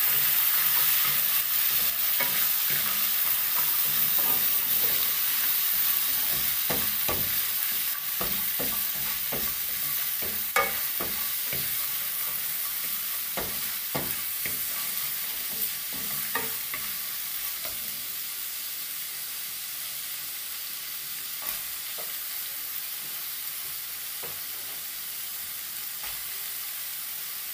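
Ground beef sizzling in a frying pan as freshly added ají amarillo sauce is stirred in with a wooden fork, with scattered scrapes and taps against the pan in the middle stretch. The sizzle slowly quietens.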